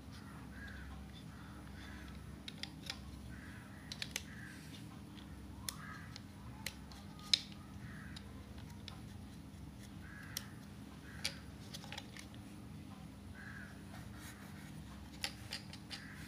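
Light, irregular clicks and taps as a plastic toy train locomotive is handled and turned over in the hands, over a steady low hum.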